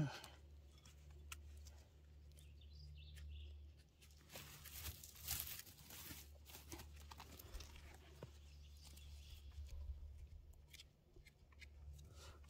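Faint rustling and crackling of forest-floor litter being handled, with scattered small clicks and a louder rustle about five seconds in.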